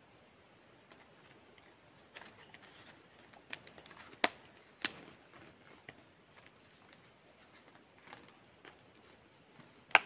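Scattered sharp clicks and knocks of objects being handled, the loudest a pair about four to five seconds in, and another sharp one near the end.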